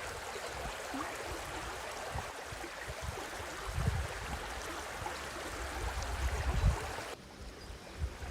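Stream flowing with a steady rush of water, with a few low thumps; the water noise drops quieter near the end.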